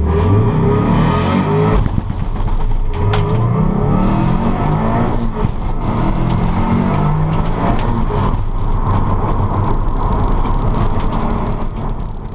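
A car engine running hard, its pitch stepping up and down, over a steady rushing noise.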